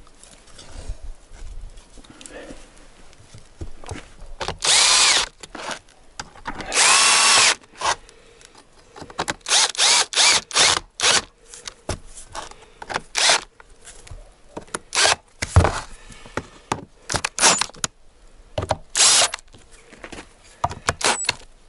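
Cordless drill-driver fastening the rear cover back onto a Bosch alternator. Two short runs of the motor, each under a second, come about five and seven seconds in, followed by many quick blips and clicks.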